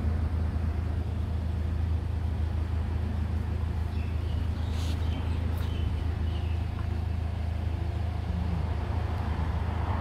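Steady low outdoor background rumble, with a few short faint high chirps about halfway through.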